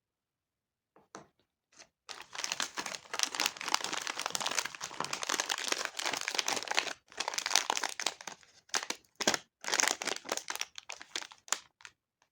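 Plastic candy wrapper crinkling as it is handled and opened. A few faint clicks come first, then about two seconds in a long spell of dense crinkling begins, breaking off briefly partway and returning in shorter bursts.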